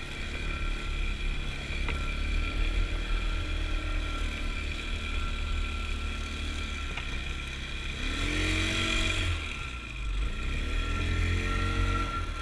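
Snowmobile engine running under way on a snow trail, its pitch rising and falling with the throttle, with a clear rev up and back down about eight seconds in.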